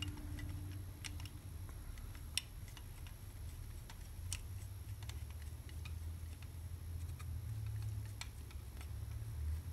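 A few faint, scattered light clicks and taps of a screwdriver shaft being fed through a Brembo brake lever's barrel and pivot, over a steady low hum.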